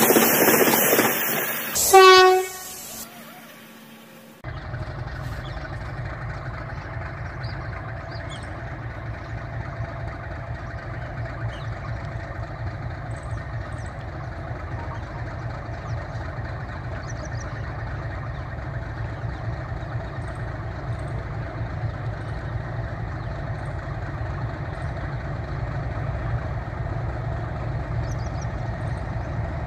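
YDM4 metre-gauge diesel locomotive's engine running with a steady low rumble and a faint steady tone, growing a little louder near the end as the locomotive starts to move. Before it, a few seconds of a passing train's noise and a short pitched tone that cut off.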